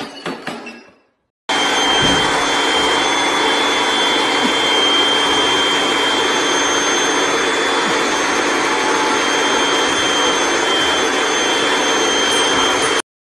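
A vacuum cleaner running steadily, a loud rushing noise with a constant high whine, held to a dog's coat through its hose. It starts about a second and a half in, after a few scattered thumps, and cuts off suddenly near the end.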